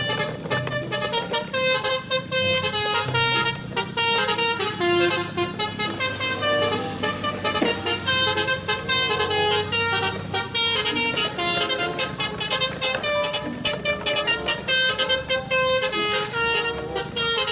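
Upbeat background music: a bright, horn-like synth melody stepping from note to note over a steady beat.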